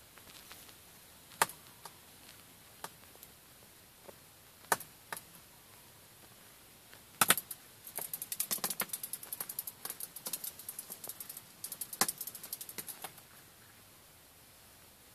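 Sharp ticks of small birds' beaks and claws on a car windshield, heard from inside the car: a few single taps, then a run of rapid tapping and scrabbling on the glass from about eight to thirteen seconds in. This is the kind of pecking and scratching that leaves streak marks on the windshield.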